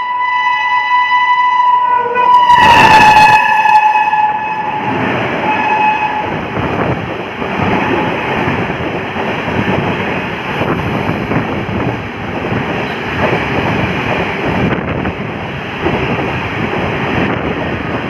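Locomotive horn of a fast passenger train sounding one long, loud blast as the train runs through the station without stopping. Its pitch drops as the locomotive passes about three seconds in, and it dies away around six seconds in. The rumble and wheel clatter of the coaches rushing past follow.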